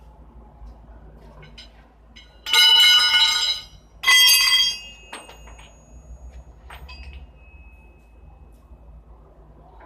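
Two loud bursts of metallic clanging, about a second each and close together, steel striking steel with a bright ring, followed by a few light clinks and a ringing tone that fades.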